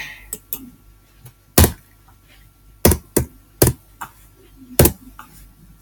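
Computer keyboard keys being struck close to the microphone: a handful of sharp, separate clicks spaced about half a second to a second apart, about five of them loud.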